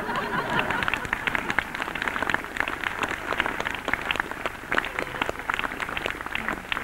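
Studio audience applauding: many hands clapping in a dense, even patter.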